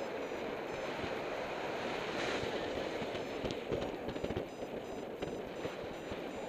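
Airflow of paraglider flight buffeting the camera's microphone: a steady rough rush with uneven, gusty low rumble.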